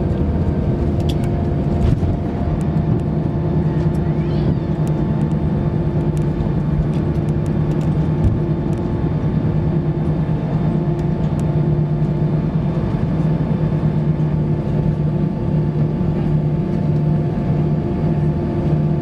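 Steady engine drone at a constant pitch and loudness, with a few faint light clicks over it.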